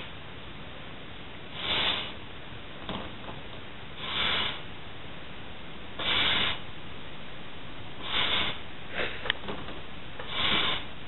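Heavy breathing through the nose while a latex glove is blown up by nose, one hissing breath about every two seconds, each lasting about half a second. A few faint clicks come near the end.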